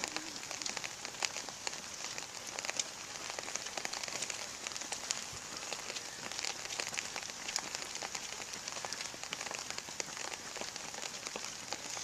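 Rain falling steadily, with a dense patter of small irregular drop ticks on a nearby surface.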